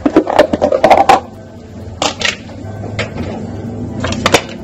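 A utensil clinking and scraping against a stainless-steel pot as rice is scooped out. The knocks come in a quick cluster in the first second, then a few scattered ones after.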